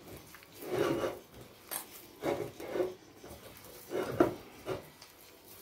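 A hand kneading moist precooked white corn flour dough in a ceramic bowl: a handful of short rubbing, squishing strokes at irregular intervals, roughly one a second.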